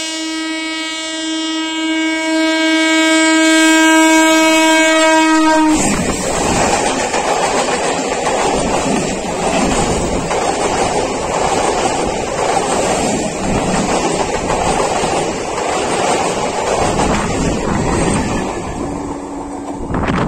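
A WAP7 electric locomotive's horn sounds one long, steady blast as the train approaches at high speed, then cuts off abruptly about six seconds in as the locomotive passes. The express's coaches then rush past, with loud, continuous wheel-and-rail noise and clickety-clack over the joints. A faint second horn sounds briefly near the end.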